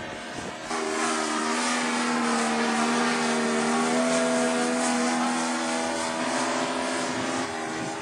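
Engine of a radio-controlled scale L-19 Bird Dog airplane in flight: a steady droning buzz that grows louder about a second in.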